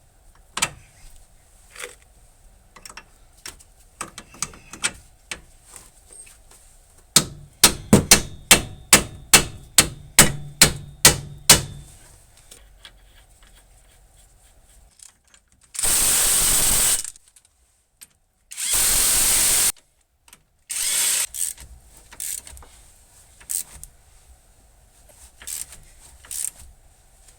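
Tools tightening the bolts into the steering knuckle: scattered ratchet-like clicks, then a run of about a dozen evenly spaced sharp clacks, then two loud bursts of a power tool about a second long each and a shorter one after.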